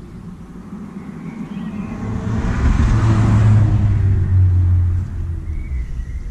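A motor vehicle passing by: a low engine hum with tyre and road noise that swells to a peak about three seconds in and then fades.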